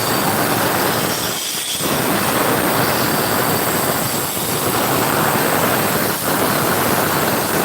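Concrete saw cutting concrete: a loud, continuous grinding noise that drops briefly about three times.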